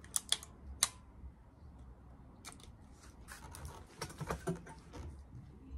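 Small sharp clicks from the action of an Air Arms S400 air rifle as a pellet is loaded: three clicks within the first second. About four seconds in come a cluster of knocks and rubbing as the rifle is handled into the shoulder.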